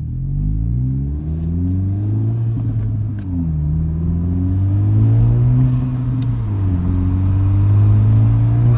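2017 Honda Civic Si's turbocharged 1.5-litre four-cylinder, breathing through a PRL Cobra cold air intake, accelerating through the gears from a crawl, heard from inside the cabin. The engine note rises, falls at two upshifts about a third and two-thirds of the way through, and rises again each time.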